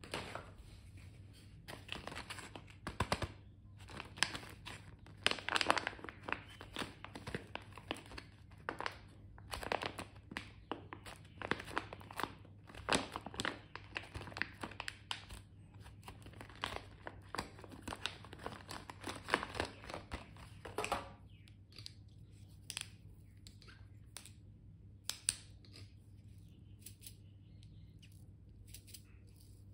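Thin clear plastic packaging crinkling and tearing as it is opened by hand, in a quick run of crackles that thins out about two-thirds of the way through into a few light clicks and taps.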